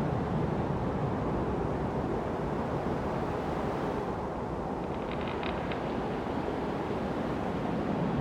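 Wind blowing steadily through forest trees, a continuous rushing that eases a little midway. About five seconds in, a brief cluster of short, high ticks sounds over it.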